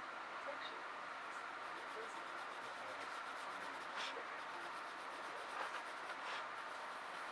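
Pencil scratching on sketchbook paper, with a few short strokes standing out near the middle and later on, over the steady hiss of a moving commuter train.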